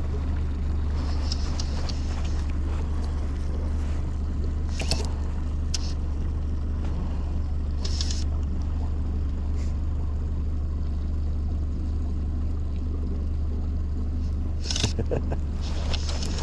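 Fishing boat's motor running steadily at low speed, a constant low drone, with a few brief sharp sounds over it.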